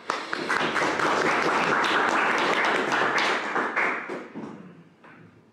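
Audience applauding: the clapping swells within half a second, holds steady for about three seconds, then thins out and dies away near the end.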